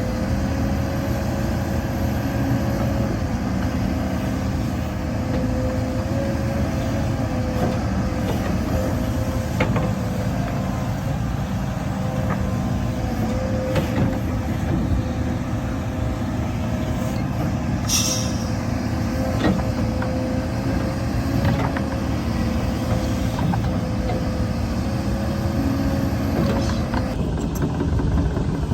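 Heavy diesel earthmoving machinery running steadily, with a steady whine over the engine's low drone and a short hiss about eighteen seconds in.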